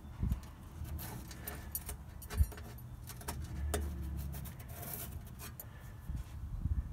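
Handling noise: scattered light clicks and knocks over a low, uneven rumble as the camera and hand move about.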